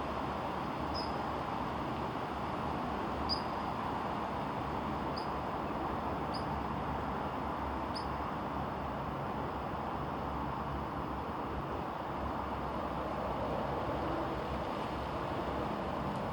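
Steady outdoor rushing noise, with about five short high chirps from a small bird spread over the first half.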